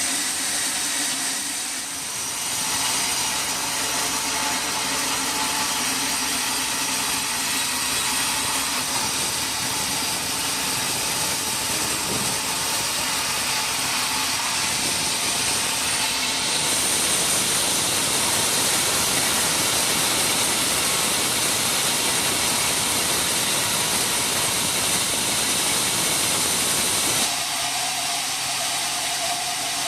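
Sawmill saw running: a steady mechanical hiss with a whining tone as it cuts wood, shifting in tone about two seconds in, around the middle, and again near the end.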